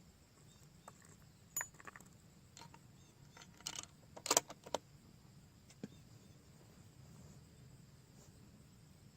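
A few separate metallic clicks and clinks of a bolt-action rifle being handled between shots, the bolt worked and a round loaded, with a small cluster of clicks about four seconds in.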